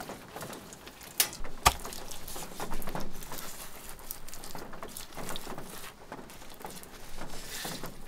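Stones knocking and clicking as they are set into wet clay by gloved hands, with two sharp knocks a little over a second in and scraping and rustling of clay and gloves between.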